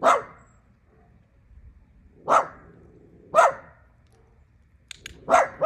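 A territorial dog barking: four sharp single barks, the first right at the start, two close together in the middle, and the last near the end.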